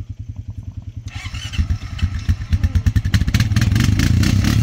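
ATV engine pulsing at idle, then revving up and running hard under load from about a second and a half in, as the stuck quad is hauled up the slope on a tow strap.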